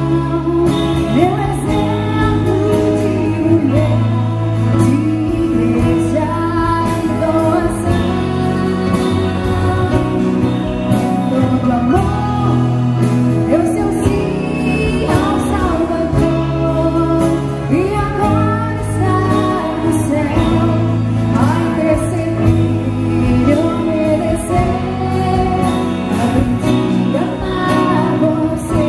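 A live band playing a song, with female vocals over keyboard, acoustic and electric guitars, electric bass and a drum kit.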